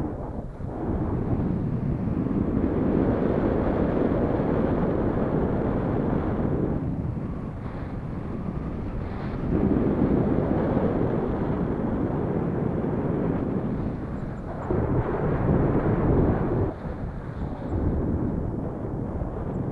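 Airflow from the paraglider's flight rushing over the action camera's microphone: a steady wind buffet that swells and eases every few seconds.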